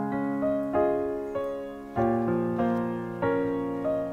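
Piano music: notes and chords struck about every half second, each ringing out and fading.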